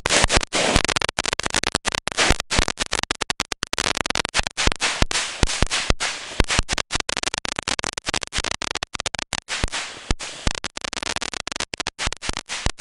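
Winda Ballerina's Ball firework fountain burning with a loud, harsh screeching whistle and hiss, chopped by many short breaks.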